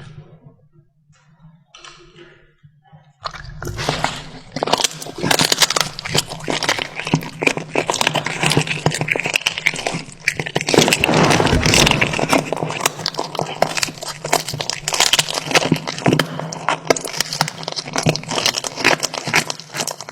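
A cat chewing raw food close to the microphone. There are a few soft sounds at first, then from about three seconds in a dense, rapid run of crunching.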